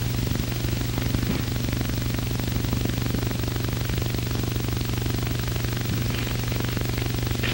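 Steady hiss and low hum of an old film soundtrack, with only faint scattered ticks.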